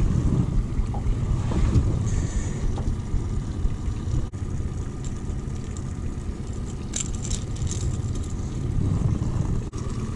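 Steady low rumble of a small boat's outboard motor running slowly, as when trolling, with a few light clicks and rustles about two-thirds of the way through.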